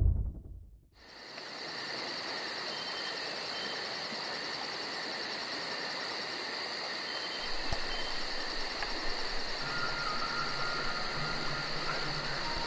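Insects chirring steadily, a high rapid even pulsing trill, fading in about a second in.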